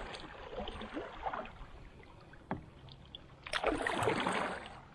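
Kayak paddle strokes in the water: a splashing swish fades out at the start, then a single sharp click, then another stroke's swish about three and a half seconds in.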